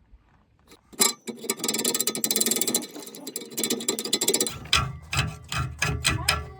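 Hand ratchet clicking in a fast run, then in slower separate clicks near the end.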